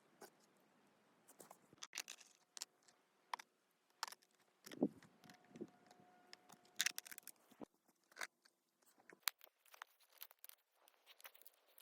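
Irregular small crunches, scrapes and sharp clicks, like hands working dry material, with no steady sound under them.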